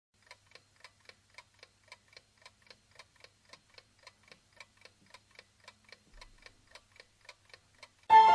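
Rapid, even clock-like ticking, about three or four ticks a second. Music starts abruptly just before the end.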